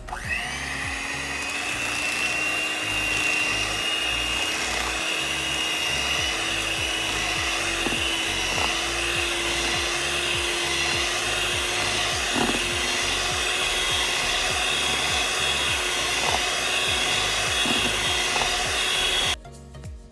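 Electric hand mixer switched on at speed 3, its motor whining steadily with the beaters spinning; it starts abruptly, rises a little in pitch as it gets up to speed, and is switched off suddenly near the end. A few faint knocks sound along the way.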